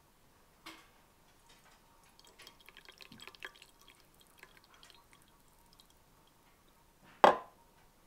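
Tea poured from a glass teapot into a porcelain cup: a soft trickle of liquid for a few seconds, after a light clink about a second in. Near the end comes a sharp knock as the glass teapot is set down on the table.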